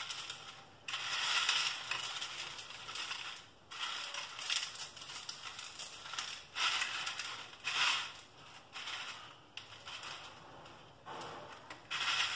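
Crisp deep-fried seva (rice- and gram-flour noodle strands) being crushed and broken by hand in a bowl: dry crunching and crackling that comes in bouts every second or two.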